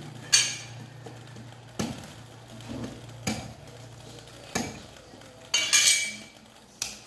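Cleaver chopping an ear of corn in its husk: four sharp chops about a second and a half apart, the first the loudest. A longer rustling scrape follows near the end.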